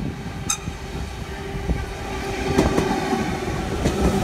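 A V-set double-deck electric train draws in alongside the platform and passes close by. Its wheels click over the rail joints, with a steady whine beneath, and the sound grows louder as the carriages come past.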